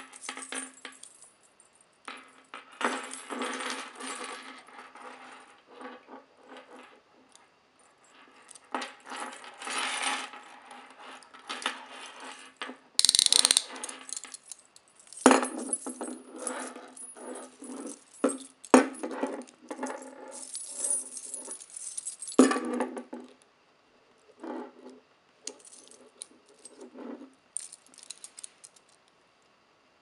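A bunch of metal keys on a ring jangling and clinking against steel chain-link handcuffs as the cuffs are unlocked and taken off, with sharp metallic clicks and rattles of the cuff chain coming in irregular bursts.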